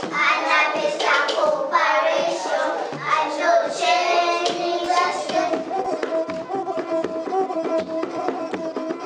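Children singing in a group, with percussive taps and claps keeping time. From about five seconds in they hold long, level notes.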